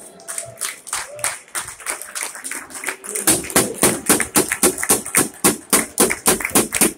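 Hands clapping close by among applause, a few scattered claps at first, then steady quick claps, several a second, from about three seconds in.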